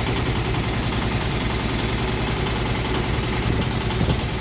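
Wooden river boat's engine running steadily while under way, a rapid, even low chugging with a steady hiss over it.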